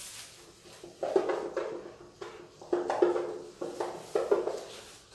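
A cloth duster wiping a whiteboard: a quick series of short rubbing strokes, starting about a second in and ending shortly before the end.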